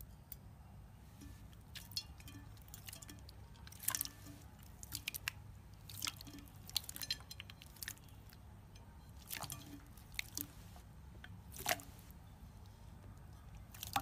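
Clear orange slime being squeezed, folded and poked by hand, giving irregular wet clicks, squishes and little popping bursts as air pockets break.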